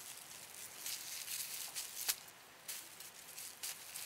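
Dry sheets of dried laver (gim) handled by hand, giving faint, short, crisp rustles and crackles every half second or so as the brittle sheets are shifted and lifted.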